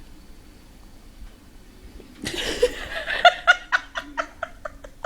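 A person laughing. About two seconds in, a burst of laughter breaks out and turns into a quick run of short "ha" pulses, about four or five a second, growing weaker toward the end.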